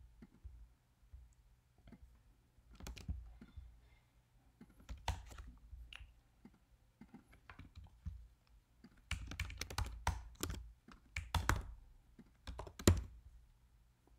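Typing on a computer keyboard: scattered keystrokes at first, then a quick flurry of keys from about nine seconds in, with one sharper key strike near the end.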